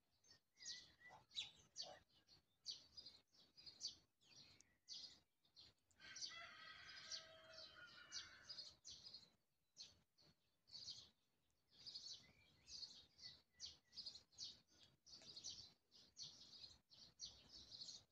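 Faint songbirds chirping over and over in short high notes, with a longer, fuller call from about six to nine seconds in.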